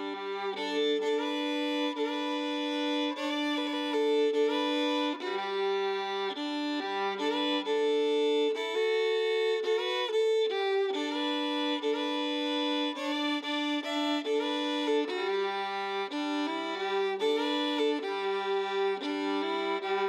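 Solo fiddle playing a tune, often sounding two notes at once.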